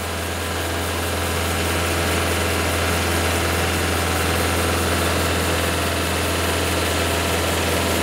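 The engine of a Cooks AC36 hydraulic portable sawmill running steadily with a low, even hum, growing a little louder over the first couple of seconds.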